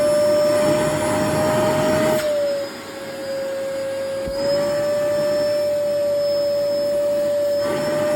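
Vacuum cleaner running with its nozzle removed, the bare open end sucking at clothing: a steady motor whine over rushing air. About two and a half seconds in, the air rush drops and the whine dips in pitch as fabric is drawn against the open end, then both recover about two seconds later.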